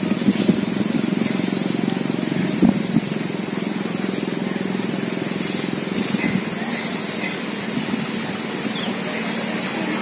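Pitu-pitu hummer on a kite, droning steadily in the wind with a rapid flutter in the tone.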